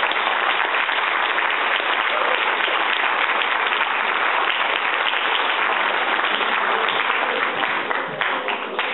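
Audience applauding: dense, steady clapping that begins to thin out near the end.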